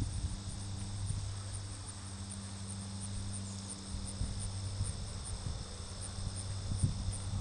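Insects chirping steadily in high-pitched, evenly pulsing trills, over a low steady hum.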